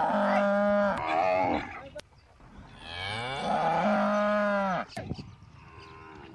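Cattle mooing: a long moo runs into the first second and a half, a second long moo rises in pitch and falls away at its end, and a fainter, shorter moo follows near the end.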